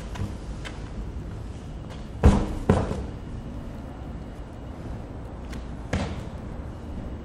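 A large heavy tire being tipped over and dropping flat on a concrete floor with a loud thud about two seconds in and a second, smaller bounce thud just after. A further single thud follows about six seconds in, over a steady low outdoor rumble.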